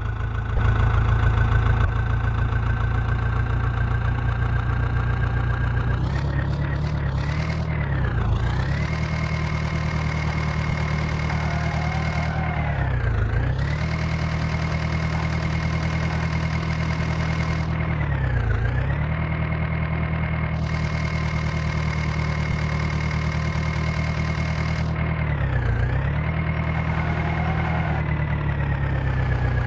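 Diesel engine running steadily. Its speed dips briefly and recovers four times, roughly every five seconds.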